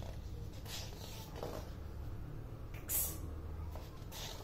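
Low, steady hum of a quiet room with faint rustling, and one short, sharp hiss about three seconds in.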